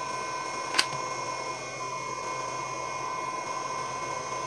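Homemade heat gun's small DC fan running steadily with a whine, blowing air heated by the element inside. One sharp click comes about a second in.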